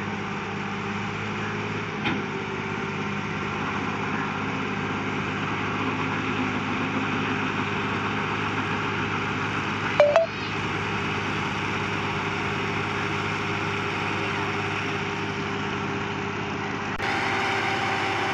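Farm tractor's diesel engine running steadily while its hydraulic tipping trolley is raised to dump a load of soil. A brief loud sound with a quick change in pitch cuts in about ten seconds in.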